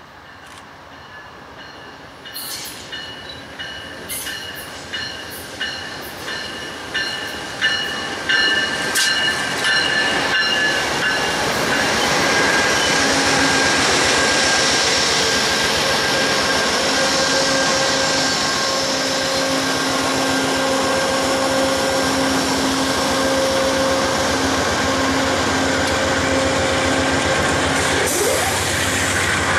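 An Amtrak passenger train approaching and passing close by at speed. As it nears there are steady high ringing tones and a run of sharp clicks that grow louder. From about twelve seconds in, the P42DC diesel locomotive and its bilevel Superliner cars pass with a steady loud rumble of wheels on rail and a low engine hum.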